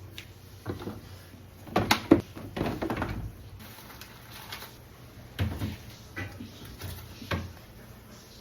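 Irregular knocks and clatter of shelves, drawers or items being handled and set down while a refrigerator is cleaned, busiest about two to three seconds in.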